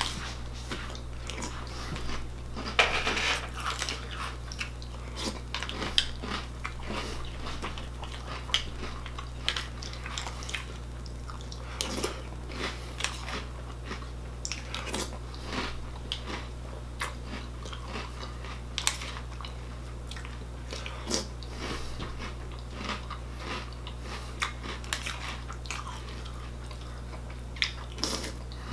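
Chewing and crunching a mouthful of Cookie Crisp cereal, with irregular sharp crunches one after another and a metal spoon clicking in a plastic bowl now and then. A steady low hum runs underneath.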